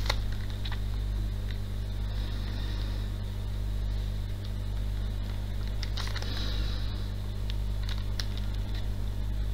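Steady low electrical hum with hiss from the recording, and a few faint clicks and soft scratchy noises now and then.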